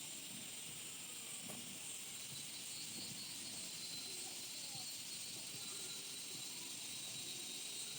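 Steady high-pitched hiss of quiet outdoor background, with a few faint scattered knocks.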